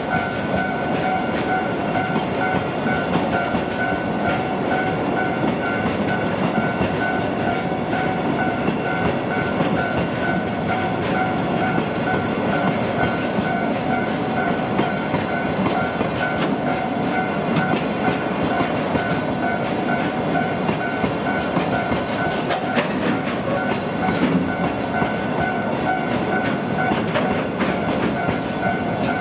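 Freight wagons rolling steadily past, wheels clacking over the rail joints, while a level crossing alarm rings on and on with its repeating two-note electronic tone.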